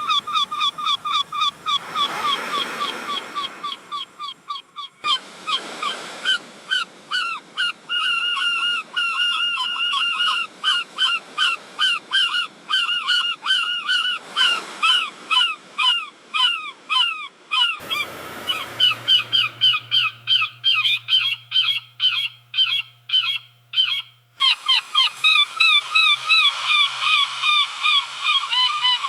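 Seagulls calling in fast, repeated series of squawks, several calls a second, over the wash of waves.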